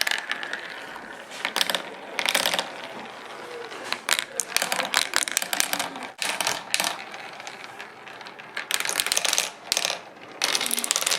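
Marbles rolling and clattering down a marble run: a dense, irregular stream of clicks and rattles, with louder clusters of hits now and then.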